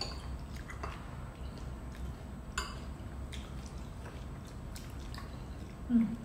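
Close-up eating sounds: wet chewing and a slurp of rice noodles in curry, with small clicks of chopsticks and a spoon against ceramic bowls. A steady low hum runs underneath, and a short 'mm' comes near the end.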